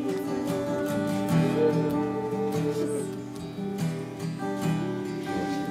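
Slow, soft worship music led by acoustic guitar strumming over sustained chords.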